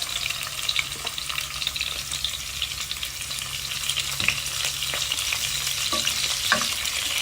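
Tofu frying in hot oil with nearly crisp garlic and shallots: a steady crackling sizzle, with a few faint clicks.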